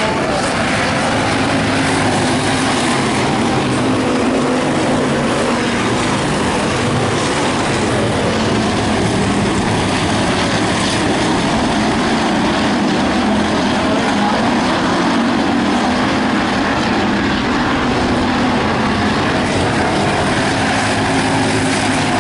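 Factory stock dirt-track race cars' engines running together as the pack laps the oval, a steady, unbroken engine drone.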